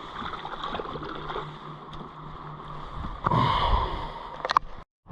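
River water running and lapping around a kayak, with a louder splashing rush about three seconds in. The sound cuts off abruptly just before the end.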